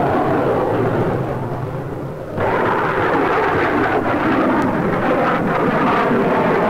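Jet roar of a Gloster Javelin's two Armstrong Siddeley Sapphire turbojets as it flies past. The roar sags for a moment, then jumps back loud about two seconds in at a film edit.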